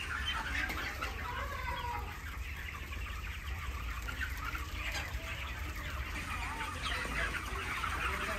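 A large flock of young broiler chickens peeping and chirping, many short calls overlapping into a continuous chatter, over a steady low hum.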